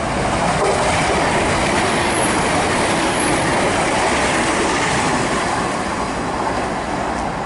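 Class 800 intercity train passing through a station at speed: a loud, steady rush of wheel and rail noise that builds within the first second and eases off near the end.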